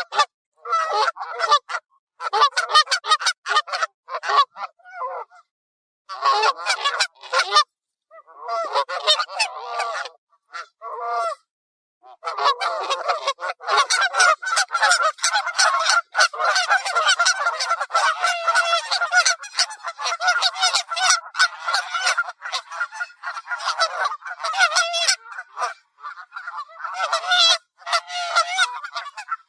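Canada geese honking: loud, rapid honks in short bursts with brief gaps, then nearly unbroken honking from about halfway through.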